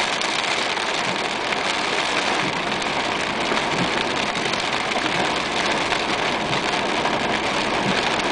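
Heavy rain falling on a car's roof and windows, heard from inside: a steady, dense hiss.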